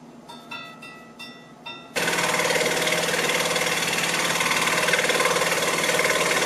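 A few light clicks, then about two seconds in a scroll saw switches on and runs steadily, its blade cutting an inner window out of a 1.5-inch pine 2x4.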